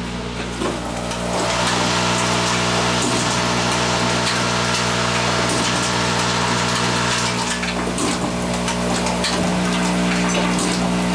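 Automated rotary indexing assembly machine running: a steady hum with a hiss that gets louder about a second and a half in, and scattered clicks of its pneumatic actuators.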